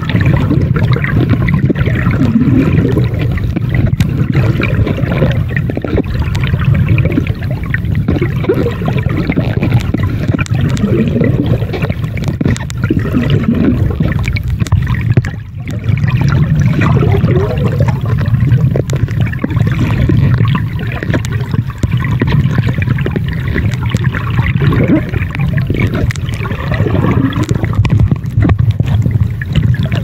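Water noise picked up by a camera held underwater: a steady, muffled low rush with gurgling, briefly dropping away about halfway through.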